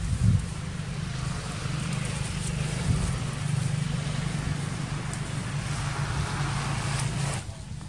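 A motor vehicle's engine running steadily, with a thump just after the start; the engine sound cuts off suddenly near the end.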